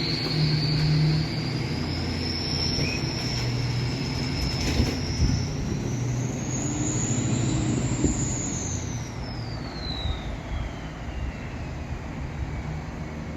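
A high mechanical whine that climbs slowly in pitch for about eight seconds, then falls away, over a steady low rumble.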